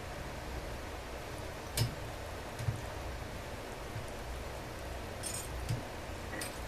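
A few light clicks and clinks of chainsaw parts and tools being handled during disassembly, spread irregularly over a steady background hiss.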